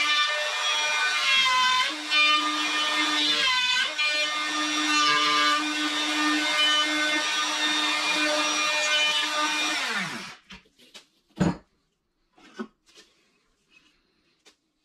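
Compact router running at full speed while cutting dovetails in a wooden drawer side on a dovetail jig, its pitch dipping briefly a couple of times under load. About ten seconds in it is switched off and winds down, followed by a few light clicks and one sharp knock.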